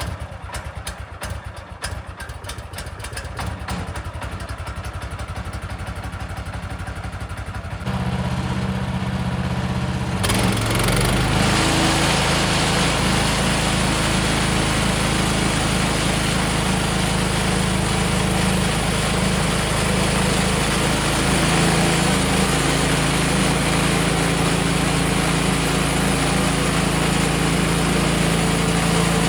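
Woodland Mills HM126 portable sawmill's engine starting, running at a fast, even pulse for several seconds as it warms up from cold. It is throttled up in two steps about eight and ten seconds in, then runs loud and steady.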